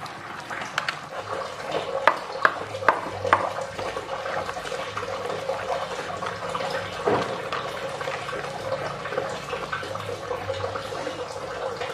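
Pestle grinding and scraping a wet peanut and petis paste round an earthenware mortar: a steady wet rubbing and squelching, with a few sharp knocks of the pestle against the bowl about two to three and a half seconds in. The paste is being ground smooth, with a little water added.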